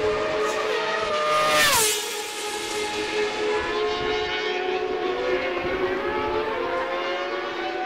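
Race motorcycle engine heard from down the circuit's straight: the note drops sharply about two seconds in, as when the rider shifts down under braking, then holds and slowly climbs as the bike picks up speed again.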